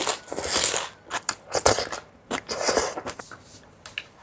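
Close-miked crisp crunching of fried fish balls being bitten and chewed, in a run of short bursts that thin out in the second half.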